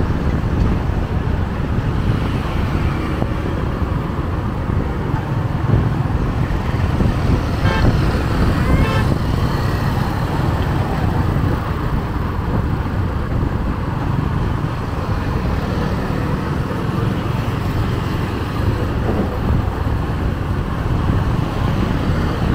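Strong wind buffeting the microphone over steady road traffic noise, with a short run of horn beeps about eight seconds in.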